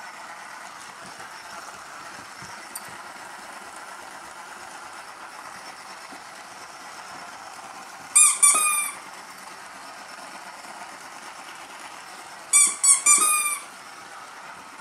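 A puppy's squeaky dog toy squeaking as he mouths it: two bursts of several quick squeaks that fall in pitch, about eight seconds in and again about four seconds later.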